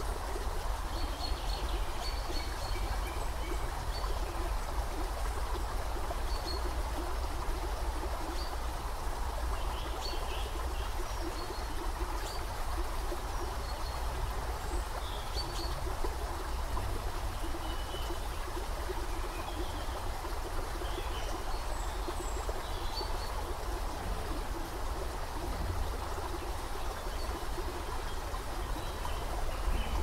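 Shallow creek water running steadily over rocks, a constant trickling babble, with faint short high chirps scattered through.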